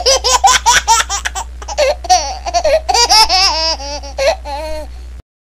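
High-pitched laughter in quick, repeated bursts over a steady low hum. It starts abruptly and cuts off sharply near the end, like an added laughing sound effect.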